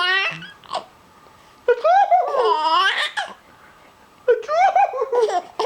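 Baby laughing in three bursts: a short one at the start, a longer one about two seconds in, and another near the end.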